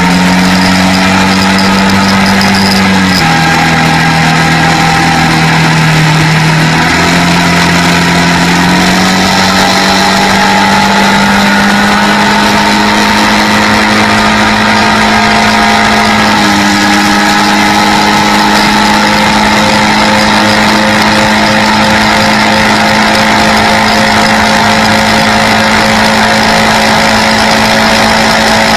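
Quad bike engine running steadily under way. Its pitch steps down about three seconds in, back up near seven seconds, climbs slowly, then steps down again about sixteen seconds in.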